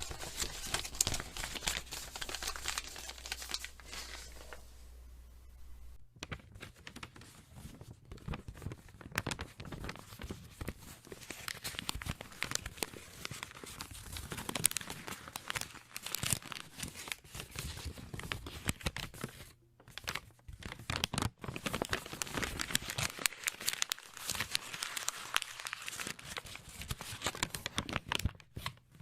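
Paper being crumpled, folded and torn: dense crinkling and rustling that runs on without pause, changing to a new take about six seconds in and again near twenty seconds.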